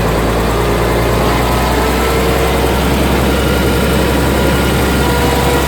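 Truck's diesel engine idling steadily, a constant low hum, running rough: the mechanic calls it misfiring ("palyado").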